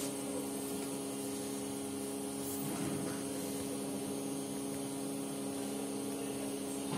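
Steady electrical hum with an even hiss behind it.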